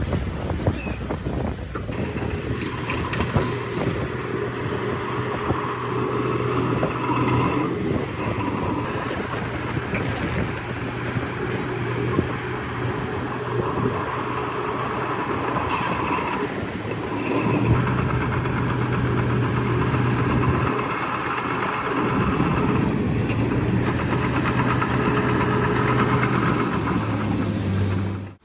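Heavy diesel engine of earthmoving equipment running steadily, its note shifting several times as the load changes, then cutting off suddenly near the end.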